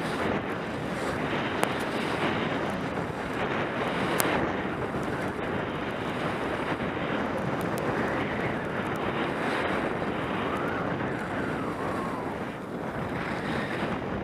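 Wind rushing over a skier's camera microphone during a downhill run, mixed with the steady scrape of skis over packed, groomed snow. A couple of sharp clicks stand out, about a second and a half in and again about four seconds in.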